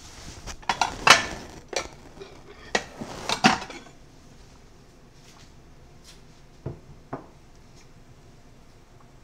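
A bowl and utensils clinking and clattering as they are handled, with a run of sharp knocks in the first four seconds and two lighter knocks about seven seconds in.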